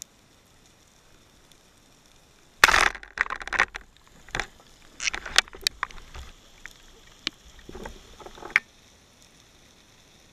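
Diving gear being handled underwater against the camera: a string of sharp clicks, knocks and short scrapes, the loudest at the start, running for about six seconds from a couple of seconds in.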